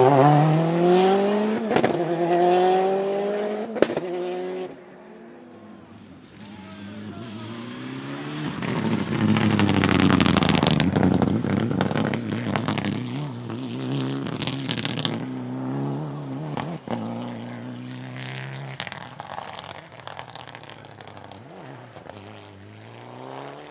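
Rally cars at full throttle on a special stage, engines revving up and down through the gears as they pass. One passes loudly at the start with a few sharp cracks. A second comes through louder about ten seconds in, with a burst of sharp cracks and pops, then revs away.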